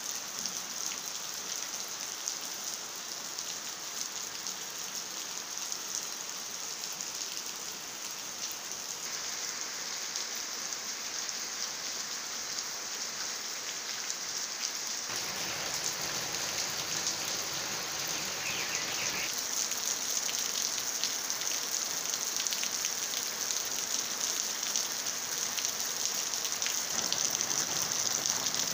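Steady rain falling: a dense hiss with the fine patter of drops striking wet ground and leaves, growing slightly louder toward the end.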